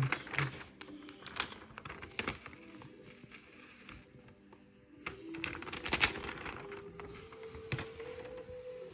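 Fingers pressing and peeling adhesive vinyl and clear plastic transfer tape on a cutting mat: irregular crinkles, clicks and taps, with a sharper crackle about six seconds in.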